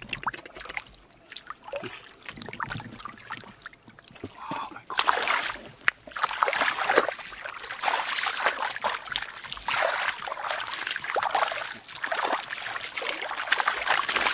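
Hands splashing and churning in shallow muddy water while grabbing at fish, an irregular run of splashes and sloshes that gets louder and busier about five seconds in.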